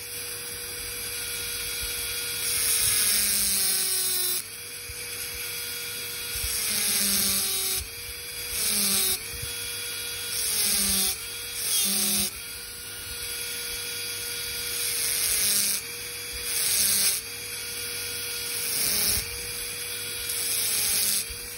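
High-speed dental handpiece with a fissure bur running with a steady whine and hiss while it cuts depth orientation grooves into a typodont molar. The bur is pressed in for about nine short passes; each is louder, and the whine dips slightly in pitch under the load.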